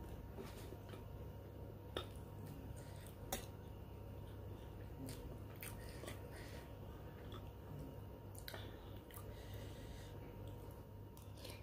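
Close-up eating sounds: soft chewing of rice and soup, with a few light clicks of a metal spoon against a ceramic bowl.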